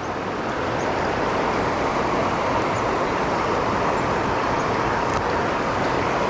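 Steady rush of flowing stream water, an even hiss without any change.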